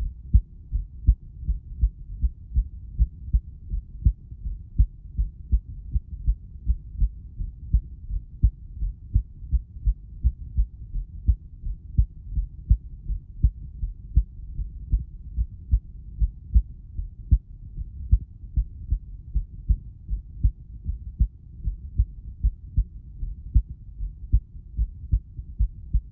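Recorded heartbeat: a steady, even rhythm of dull, low thumps.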